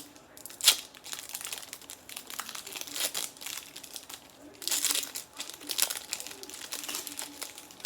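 A foil Pokémon booster pack being torn open and crinkled in the hands, with irregular crackling and a sharp rip about a second in.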